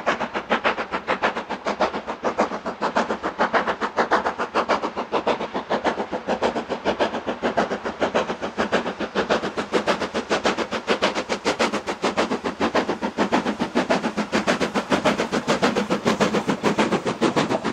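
LMS Black 5 4-6-0 steam locomotive's two-cylinder exhaust beating hard and evenly, about four to five beats a second, as it hauls a passenger train.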